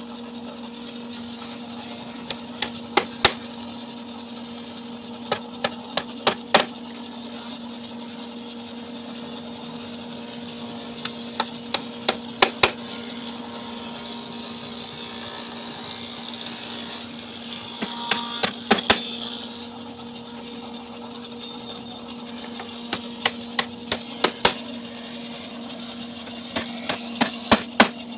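Sharp knocks on wood in quick groups of three to five, repeating every few seconds over a steady machine hum, during sofa woodworking. A short hissing noise comes in about eighteen seconds in.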